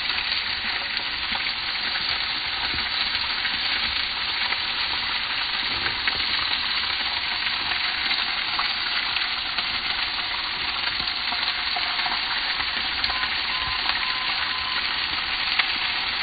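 Steady sizzling of steak frying in a cast-iron skillet inside a gas-fired OONI Koda pizza oven.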